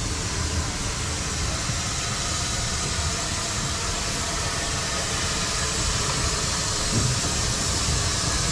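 Steam locomotive moving slowly tender-first over pointwork: a steady hiss of steam escaping low by the cylinders over a low rumble of the running gear, with one short knock about seven seconds in.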